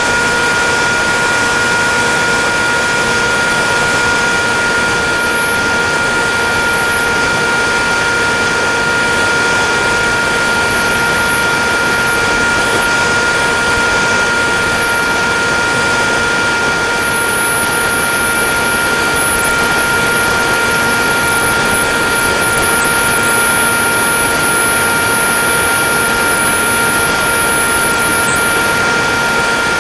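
Ritewing Drak flying wing in cruise, heard through its onboard camera: the electric motor and pusher propeller run at a steady, unchanging pitch under a constant rush of air, with a thin high whine above.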